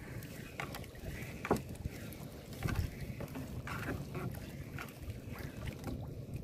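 Small fishing boat rocking in the water, with water sloshing against the hull and a series of irregular knocks on the boat, roughly one a second.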